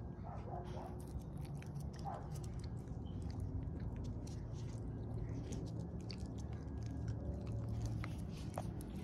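A pet chewing food close to the microphone: a run of small, irregular crunching clicks over a steady low rumble.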